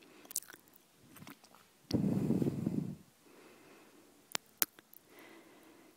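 Quiet room tone of a voiceover recording. A soft low rustle lasts about a second, starting about two seconds in, and two short clicks follow a little after four seconds.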